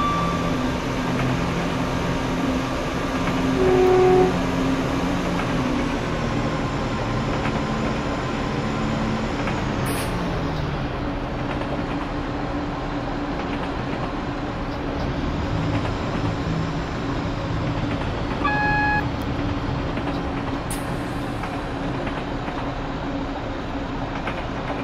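Class 172 diesel multiple unit running with a steady engine drone, its pitch falling about ten seconds in. Two short electronic beeps come in, the first and louder about four seconds in, the second near 18 seconds.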